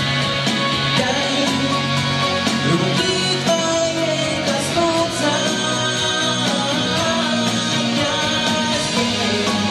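A pop-rock song with guitar in the backing; a man's singing voice comes in through a handheld microphone about three seconds in and carries on.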